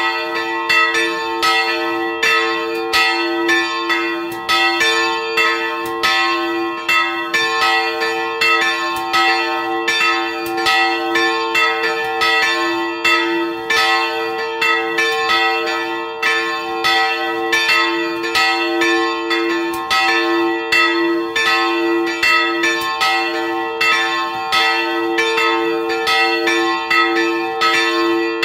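Two old bronze church bells, cast in 1701 and 1714, swinging and ringing together in a continuous peal heard close up in the belfry: a lower and a higher bell struck over and over, their strokes overlapping and ringing on.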